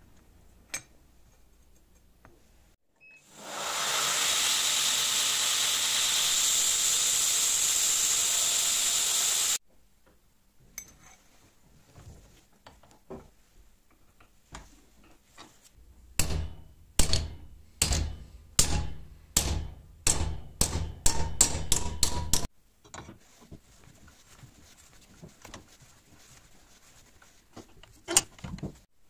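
A steady, loud hiss for about six seconds starts and stops abruptly. About ten seconds later comes a run of quick hammer blows on a small spring-steel habaki blank held in a bench vise, about two strikes a second for some six seconds.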